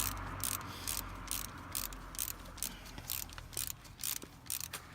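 Socket ratchet clicking in quick back-and-forth strokes, about three a second, as a water pump bolt is run in and tightened.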